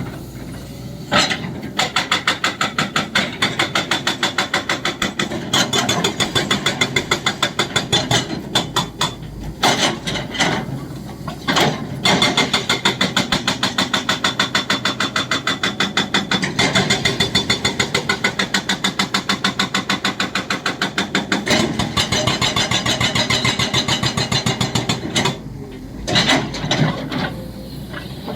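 Excavator-mounted hydraulic breaker hammering in a fast, even run of sharp blows over the running engine, stopping briefly a few times between runs.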